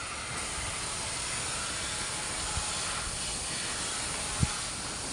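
Gravity-feed air spray gun spraying primer: a steady hiss of compressed air and atomised paint. A single short low knock about four seconds in.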